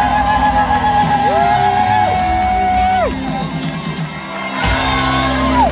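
Rock band playing live, with long held sung notes that glide up, hold and fall away over a steady bass, and whoops from the crowd. The music stops abruptly near the end.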